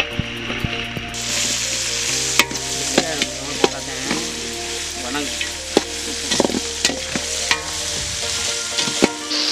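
Shallots, dried red chillies and curry leaves sizzling in hot oil in a large metal pot, stirred with a long perforated metal ladle that scrapes and clicks against the pot. The sizzle grows louder about a second in.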